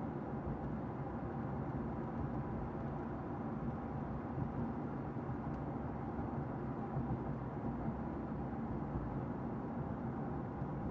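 Steady road and engine noise heard inside a car's cabin while driving: a low, even rumble with no change in speed.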